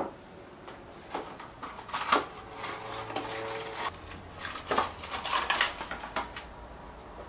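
Glass jars with metal lids clinking and knocking against each other and against a stainless steel pot as they are set into it. There are several separate knocks, one followed by a brief ring.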